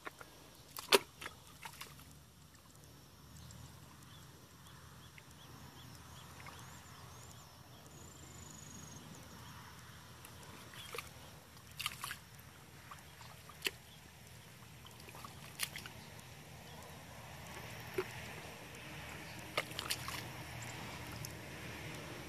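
Hands sloshing and groping in shallow muddy water, with a few sharp splashes spread several seconds apart over a faint, low, steady rumble.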